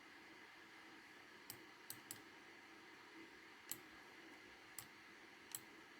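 Computer mouse clicks: six short, sharp clicks at uneven intervals over a faint room hiss.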